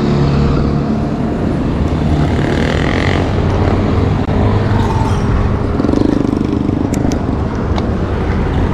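Road traffic: motor vehicle engines running steadily close by on a highway.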